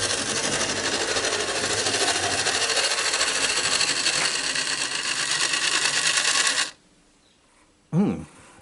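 Toy locomotive running on model railway track, its small motor and wheels making a steady whirring rattle that cuts off abruptly about two-thirds of the way through. A brief short sound follows near the end.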